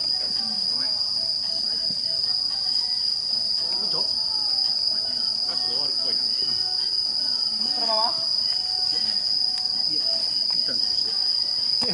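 A chorus of night insects shrilling in one steady high-pitched tone, with faint distant voices of players beneath it.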